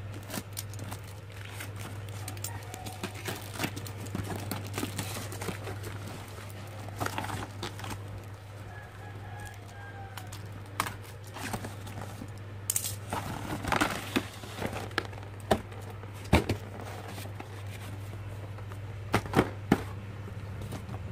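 Plastic wrap and packing tape crinkling and tearing as a cardboard parcel is cut open with a utility knife, with cardboard rustling and a few sharp knocks of handling. A steady low hum runs underneath.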